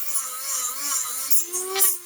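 Dremel rotary tool grinding down hard plastic body posts, its motor whine wavering in pitch as the load changes, over a hiss of grinding. It surges louder briefly near the end.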